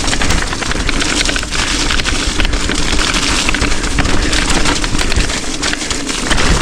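A fast ride down a rough rocky trail heard from a camera on the rider: wind buffeting and a dense, loud clatter of rattles and knocks, with a steady hum underneath.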